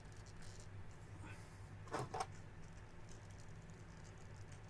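Two quick plastic clicks about two seconds in, as snap-fit parts of a plastic model-kit figure are pressed together, with lighter handling ticks before them and a steady low hum underneath.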